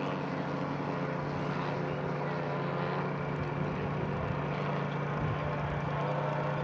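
Propeller warbird's piston engine droning steadily as it flies low past, its hum growing a little stronger near the end.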